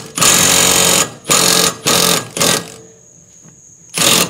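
Cordless Milwaukee mid-torque impact wrench hammering in short bursts on a mower blade bolt, taking the blade off. It gives one burst of about a second, three shorter ones, a pause, and starts again near the end.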